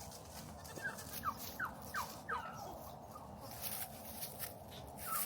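Turkey gobbling: a quick run of short falling notes about a second in, and another run starting near the end.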